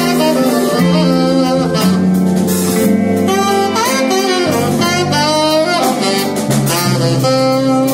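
Live saxophone leading a jazz-blues tune, playing a bending melodic line over a small band with keyboard, electric guitar and a steady bass line.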